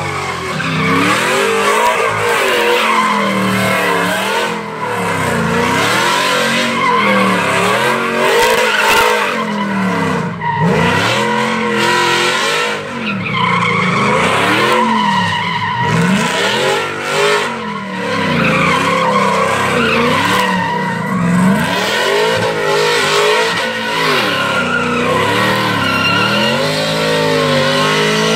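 Pickup truck doing donuts: its engine revs up and falls back over and over, about every one and a half to two seconds, while the rear tires spin and squeal on the concrete, throwing up tire smoke.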